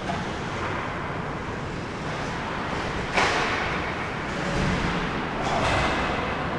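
Ice hockey play in a rink: steady rink noise with a single sharp crack of a hockey impact about three seconds in.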